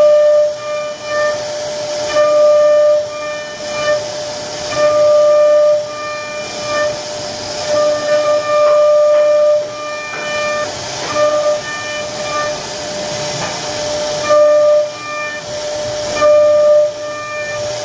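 CNC router spindle running with a steady high-pitched whine and a hiss of cutting as the bit carves a relief pattern into wood. The whine swells and falls again and again as the bit moves through the cut.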